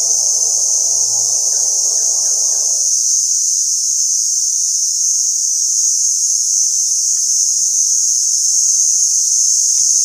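Steady, loud, high-pitched drone of a tropical forest insect chorus. A lower pulsing sound runs underneath for the first three seconds, then stops.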